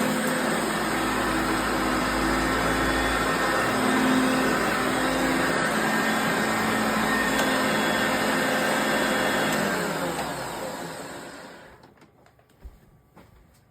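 Hoover Concept One self-propelled upright vacuum cleaner running steadily, then switched off about ten seconds in, its motor winding down over a couple of seconds to near silence.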